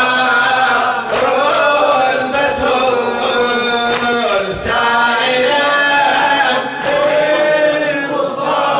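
A man chanting a Shia mourning lament into a microphone in long, held melodic lines that glide up and down, with no break.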